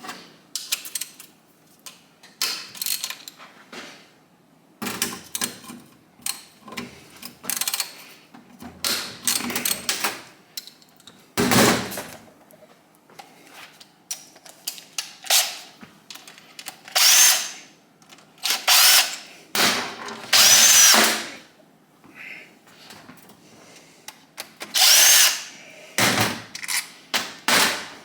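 Handheld electric power driver run in short bursts, about ten times, its motor whining up and down, to back out the bolts holding the oil pump on a Kawasaki KZ1000 engine's crankcase. Small metal clinks of tools and parts come between the bursts.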